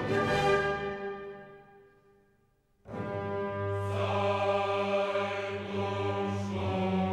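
Background music: a choir-like passage fades away over the first three seconds, then after a brief silence a new piece with held low notes comes in suddenly.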